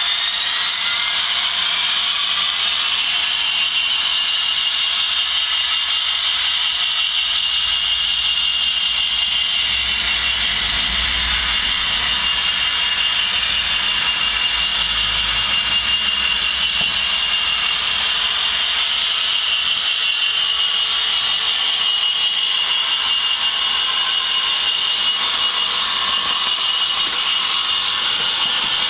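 Sound-fitted model diesel locomotive: its sound decoder plays a diesel engine idling with a high turbocharger whine. The whine rises over the first couple of seconds, then holds steady.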